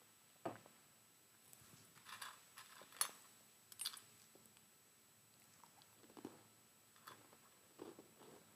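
A person chewing and crunching a biscuit close to the microphone: faint, irregular crunches and clicks, the sharpest about three seconds in.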